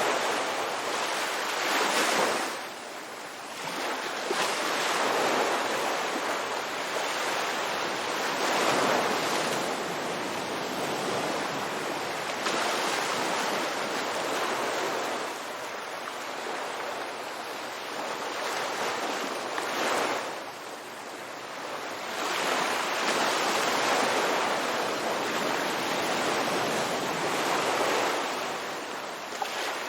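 Ocean waves breaking and washing on a beach, the surf rising and falling in irregular swells every few seconds.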